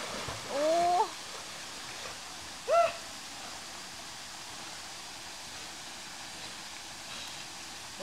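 Steady rush of waterfall water, with two short rising vocal cries from a person, the first about half a second in and the second, briefer one near three seconds in.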